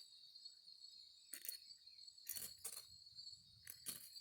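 Faint, steady high-pitched chirring of crickets, with a few sharp snaps about a second in and several more in the second half from a small fatwood-and-twig campfire catching.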